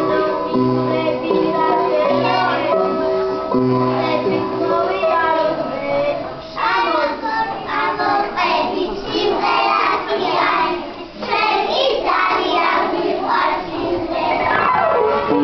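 Young children singing together over accompanying music. The opening seconds are the music alone, with held notes and a bass line, and the children's voices come in about six seconds in.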